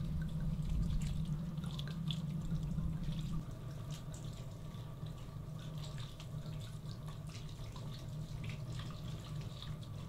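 Liquid splashing and dripping in a bowl as a rabbit is worked in a white-wine marinade, with scattered small wet clicks. A steady low hum underneath drops away about three and a half seconds in.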